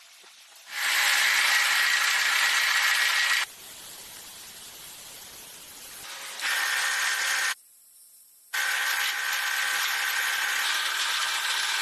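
Machining noise from a drill or cutting tool running steadily, a harsh hiss with a steady high whine, in several stretches that stop and start abruptly, with a brief near-silent gap past the middle.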